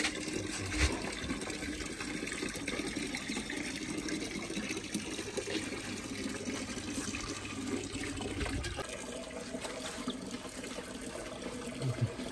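Water running steadily from a hose and splashing on a wet concrete floor, its lowest rumble dropping away about nine seconds in.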